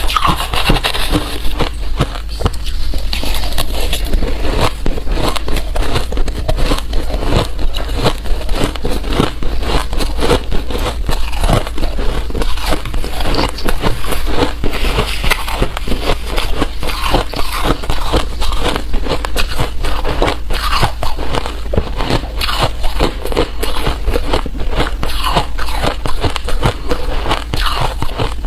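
Ice being bitten and chewed close to the microphone: a dense, continuous run of sharp cracks and crunches.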